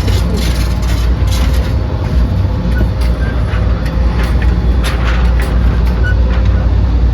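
Steady low rumble with a thin constant hum, and a few faint sharp cracks about a second apart at times.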